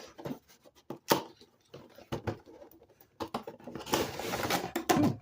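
Toy packaging being handled during an unboxing: a series of clicks and taps, one sharp one about a second in, then rustling and scraping of cardboard and plastic for about a second near the end.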